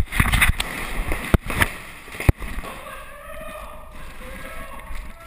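Scuffing and rustling as a paintball player dives and slides into an inflatable bunker on turf, with a few sharp cracks of paintball markers firing in the first two and a half seconds.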